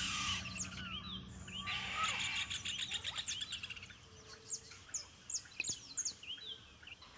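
Rufous hornero giving a rapid series of sharp, high alarm calls at a caracara threatening its chicks at the nest, growing fainter toward the end.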